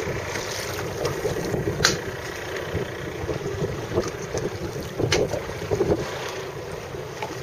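Wind blowing across the microphone over choppy open water, a steady rushing noise, with two sharp slaps about two and five seconds in.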